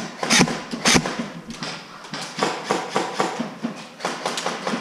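Footsteps at a walking pace: two heavy steps about half a second apart in the first second, then lighter, quicker scuffing steps and clicks.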